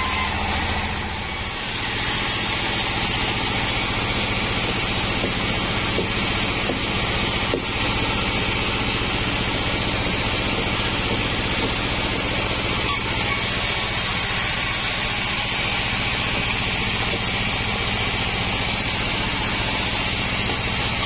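Band sawmill running steadily, its band saw blade cutting through a wadang log over a constant machine hum. There is a single click about seven and a half seconds in.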